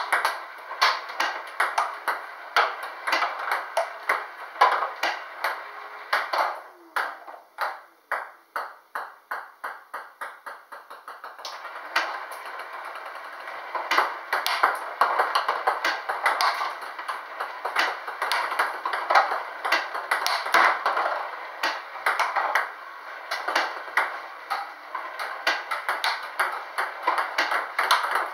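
Table tennis balls clicking rapidly off the table and bat in a fast practice rally, with balls fed by a table tennis robot. About a third of the way in there is a stretch of quieter, evenly spaced clicks, about three a second.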